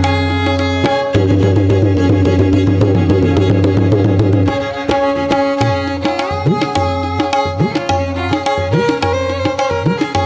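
Background music: fast drumming over held melodic instrument tones, with a low sustained tone that drops out about halfway through.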